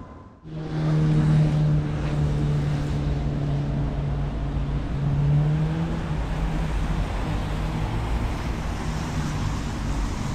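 Road traffic with a motor vehicle's engine running: a steady low engine hum starts about half a second in and fades out about six seconds in, over a constant low rumble of traffic.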